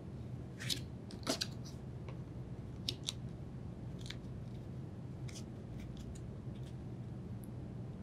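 A new condenser fan motor support being pressed into a plastic fan shroud assembly: a scatter of short, sharp clicks and scrapes from parts being handled and fitted, over a steady low hum.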